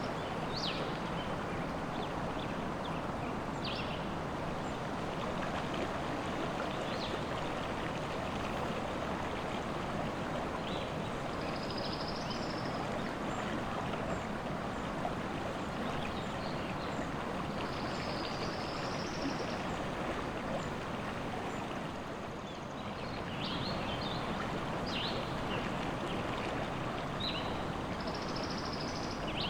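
River water rushing steadily, with birds chirping over it in short calls and a few brief warbling phrases. The water eases briefly about two-thirds of the way through.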